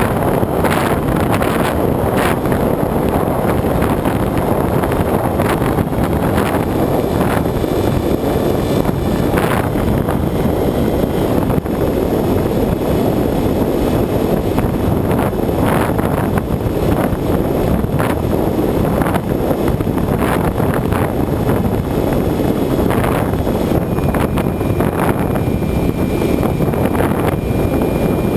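Steady rush of airflow buffeting the microphone of a camera riding on a Bixler electric RC plane in flight, with the plane's pusher motor and propeller running beneath it.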